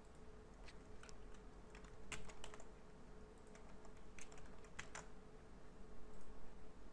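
Computer keyboard keystrokes in short irregular clusters of a few keys at a time, over a faint steady hum.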